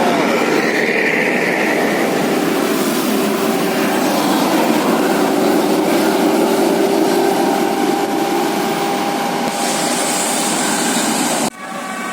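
Large bus running close by: a loud, steady noise with a few faint held tones, cut off suddenly near the end.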